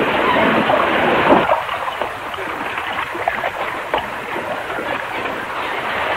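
Water splashing and running steadily at a mill's water wheel, fuller and louder for the first second and a half, then even.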